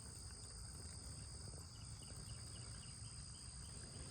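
Faint steady high-pitched drone of insects, with a low background rumble and a few faint small clicks.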